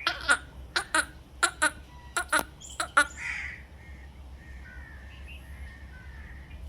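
Cranes calling: a run of about ten short, sharp calls in the first three seconds, then softer, quieter calls.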